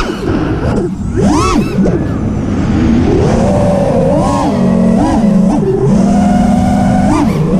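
FPV freestyle quadcopter's motors and propellers whining. The pitch swoops sharply up and down with each throttle punch, about a second and a half in and again near the end, and holds fairly steady between.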